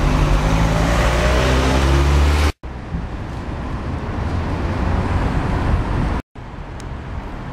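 A road vehicle's engine running close by, its pitch rising slightly, cut off abruptly about two and a half seconds in. Steady street traffic noise follows.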